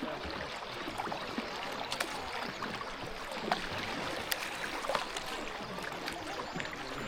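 Kayak paddling on a river: steady water splashing and trickling around the boat and paddle, with a few sharp light knocks scattered through.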